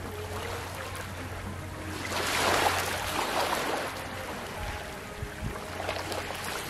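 Small ripples lapping and washing over a coral-rubble and pebble shore, with one wash swelling up about two seconds in and ebbing away over a second or so. A steady low hum runs underneath.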